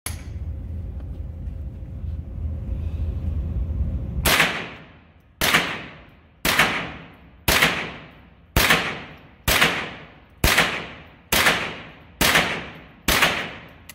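Ruger 10/22 semi-automatic .22 LR rifle firing CCI Mini-Mag 36-grain hollow-points: ten shots at about one a second, each echoing off the range walls. The shooting starts about four seconds in, after a low rumble.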